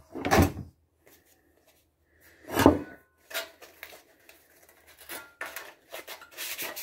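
Handling of a thin sheet-metal fairing piece: a few scattered knocks and rustles, two of them louder, about a third of a second and two and a half seconds in. Near the end, quick strokes of sandpaper rubbed by hand along the metal's edges begin, taking the burrs off.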